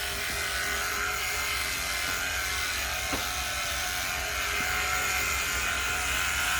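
Cordless battery-powered pressure washer running steadily, its small electric pump motor buzzing over the hiss of the water spray.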